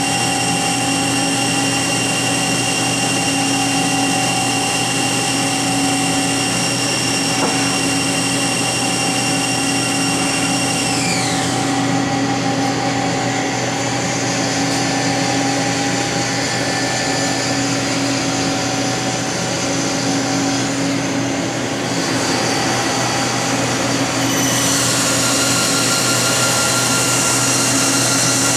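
Hardinge GT27 CNC lathe running: a steady machine hum under a high whine from the spindle drive. About eleven seconds in, the whine drops in pitch as the spindle slows. Around twenty-four seconds a new, higher whine and a hiss come in.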